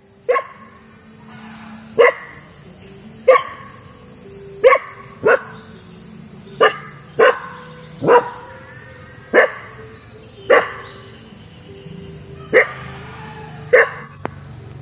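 A dog barking repeatedly, about a dozen single barks spaced roughly a second apart, some closer together.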